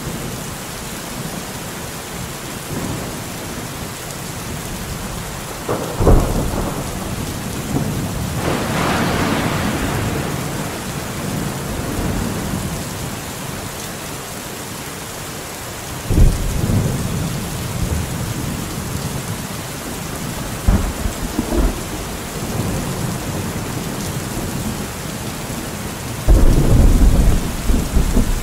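Steady heavy rain with thunder: several sudden thunderclaps and rolling rumbles break over the rain, the longest and loudest near the end.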